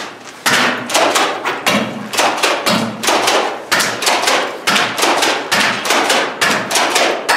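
Airsoft gun being fired repeatedly, a series of sharp cracks about two a second, echoing off bare concrete walls.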